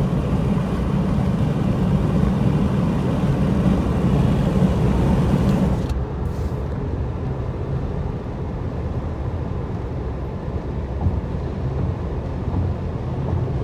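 Steady road and engine noise heard inside a car cruising at highway speed. About six seconds in the sound changes abruptly, becoming duller and a little quieter, then runs on steadily.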